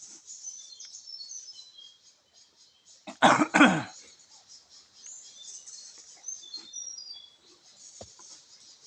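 A person coughs twice in quick succession, loud and harsh, about three seconds in, over steady high chirping of birds and insects.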